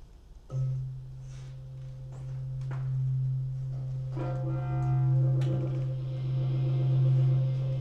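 Experimental electronic music: a steady low drone comes in about half a second in and gradually swells, and a higher, slightly wavering layered tone joins it about four seconds in.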